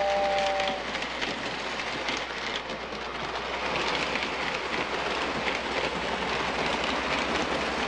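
Model electric train running on its tabletop layout: a steady rattling clatter of small wheels on metal track. A brief two-tone whistle sounds in the first second and cuts off.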